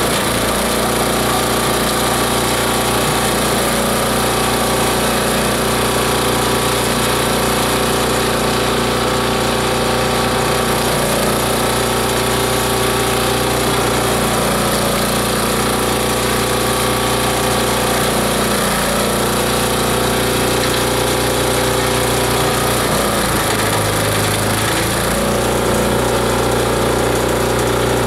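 A multi-blade shredder/grinder machine running steadily with a loud, even machine drone. Its low hum shifts briefly about 23 seconds in.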